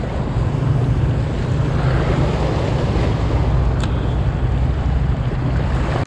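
Steady low rumble of wind buffeting the microphone, with river water lapping underneath. One short click about four seconds in.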